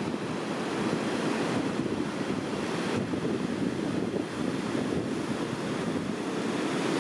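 Rough surf breaking, with strong wind buffeting the microphone in a steady rushing noise.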